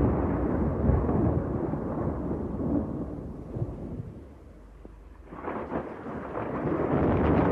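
Thunder rolling over rain: a long rumble that dies down about four seconds in, then another peal builds in its place.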